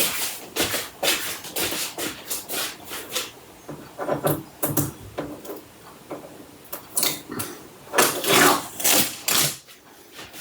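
Packing material being handled and pulled out of a box: irregular rustling, crinkling and scraping, loudest in a cluster near the end.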